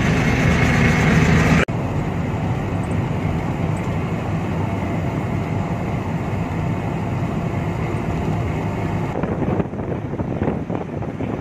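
A light delivery truck's engine and road noise while driving on the highway: a steady running drone. The sound changes abruptly a little under two seconds in, and turns rougher and more uneven near the end.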